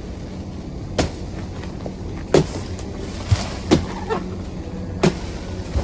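Long-pole harvesting sickle (egrek) hacking into oil palm frond bases: about five sharp cutting strikes, roughly one every second or so, as the fronds below the fruit bunches are cut away.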